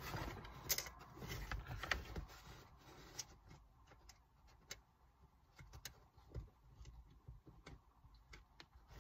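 Faint, scattered clicks and light rustling of hands handling small parts and tools at a car's shifter base, busier in the first couple of seconds and then sparse.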